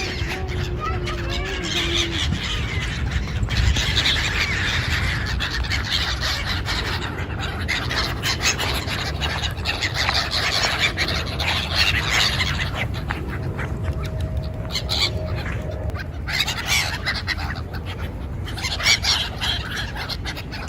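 A large flock of gulls calling, many overlapping cries at once over a steady low rumble.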